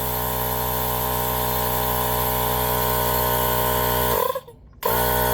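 Small cordless battery-powered tire inflator running with a steady motor hum, pumping up a mini bike tire to seat its beads. It cuts out briefly about four seconds in, then starts again.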